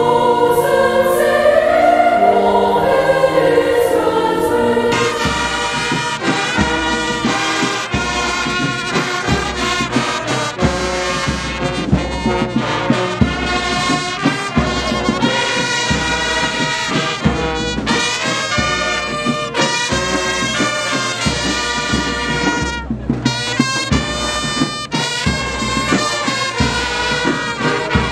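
Brass band playing march music, with a steady bass drum beat that comes in about five seconds in.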